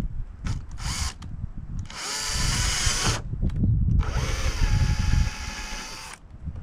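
Cordless drill run in two bursts, about a second and then about two seconds long, drilling or driving screws through a track mount into the kayak's plastic deck. The second burst's whine rises in pitch, then holds. A few light handling clicks come before the first burst.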